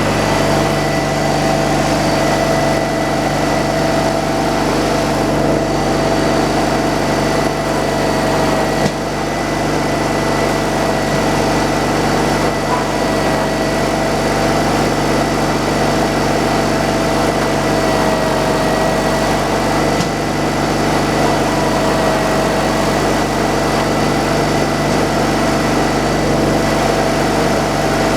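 Sawmill running steadily, its engine noise carrying a steady whine.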